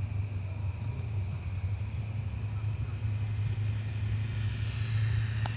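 A steady low engine hum, with insects chirping faintly and evenly in the background. A single sharp click comes near the end.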